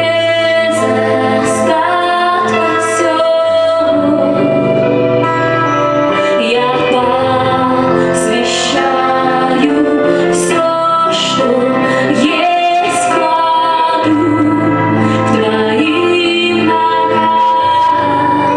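A woman singing a Russian Christian worship song over instrumental accompaniment.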